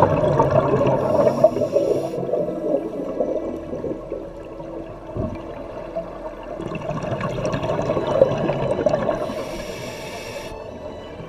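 Scuba diver breathing through a regulator underwater: two long rushes of exhaled bubbles about six seconds apart, each with a short high hiss from the regulator.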